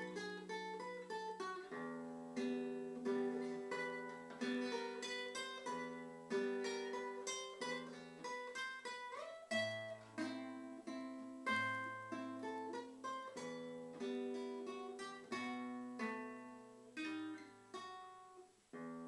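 Classical nylon-string guitar played solo fingerstyle: a plucked melody over held lower notes, with deeper bass notes joining about halfway through.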